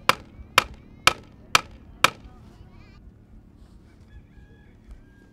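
Hammer blows driving a wooden sign stake into the ground: five sharp strikes about half a second apart that stop about two seconds in. Faint drawn-out calls follow in the background.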